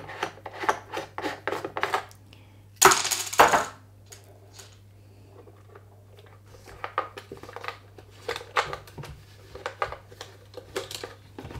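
Metal clicks and clinks of a nut driver unscrewing the mounting nut of a blender's speed-control potentiometer, with a brief louder metallic rattle about three seconds in and more small handling clicks as the part is pulled out.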